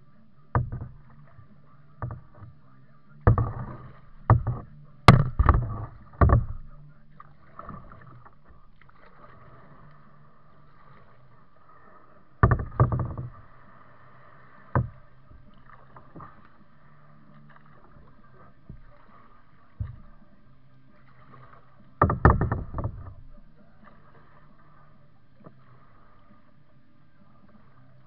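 Kayak paddling: irregular knocks and splashes as the paddle dips and bumps the plastic hull. They come in a dense cluster over the first several seconds, a few more around the middle, and another cluster near 22 seconds in, with a faint steady hum between.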